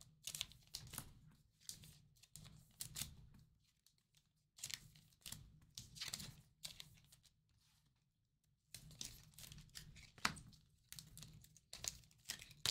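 Rustling and crinkling of thin plastic as a foil trading card is slipped into a soft sleeve and then into a rigid plastic top loader, in irregular bursts with two short pauses.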